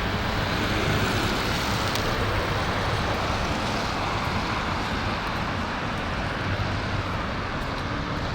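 Steady street traffic noise: an even rumble and hiss of vehicles passing on the road, with no single event standing out.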